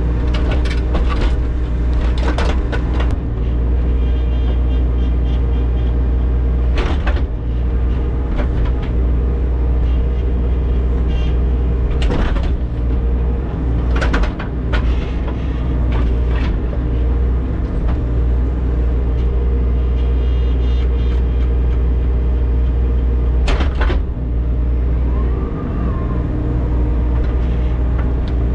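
Diesel engine of a compact digging machine running steadily under load, with irregular sharp knocks and scrapes as the bucket digs through frozen ground.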